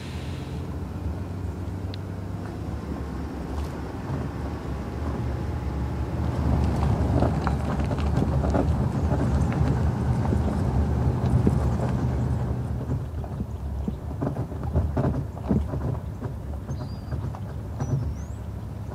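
Road rumble and loose rattling of a bass boat being towed on its trailer behind a pickup truck, with wind over the boat deck. It grows louder and busier a few seconds in and eases off again past the middle.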